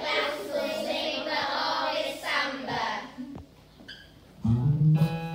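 A group of children singing together, which stops a little past the midpoint. After a short quiet gap, instrumental music with a strong bass line starts near the end.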